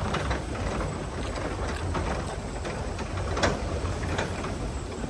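Ford 4x4 driving slowly over a rough dirt track: a steady low rumble with scattered knocks and rattles as it goes over the bumps, the loudest about three and a half seconds in.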